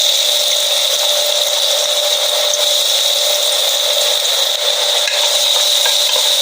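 Onions sautéing in hot oil in a pan: a steady sizzling hiss, over two constant steady tones.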